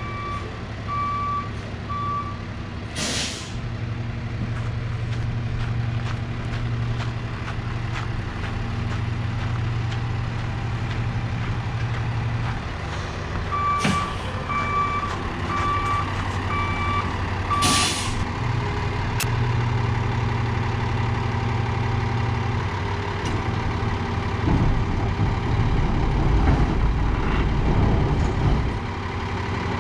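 Peterbilt two-axle roll-off truck with a Cummins diesel running steadily while backing up, its reverse alarm beeping at the start and again midway. There are three short sharp air-brake hisses, at about three, fourteen and eighteen seconds in, and a heavier low rumble in the last few seconds.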